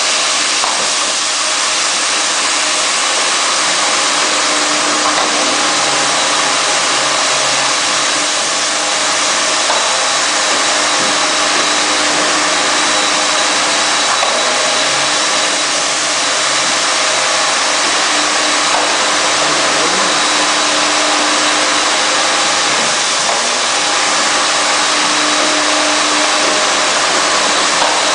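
Rug washing machine running with a steady, even mechanical noise and a faint hum.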